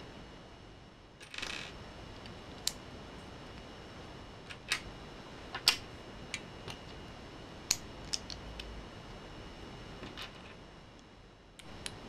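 Small plastic Lego pieces clicking and tapping as they are handled and pressed together, as a series of sharp, irregular clicks. There is a short rustle a little over a second in.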